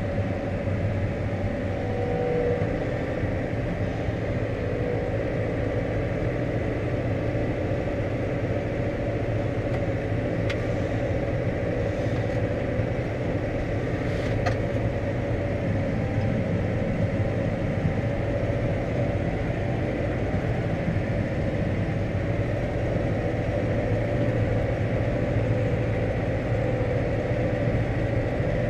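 Steady drone of a Steyr 4130 Profi CVT tractor's engine and drivetrain, heard from inside the cab as it drives across the field towing a spreader. A few faint clicks come through around the middle.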